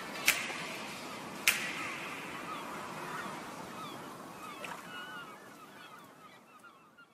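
Birds calling in short, falling chirps over a steady hiss that fades away toward the end; two sharp clicks in the first two seconds.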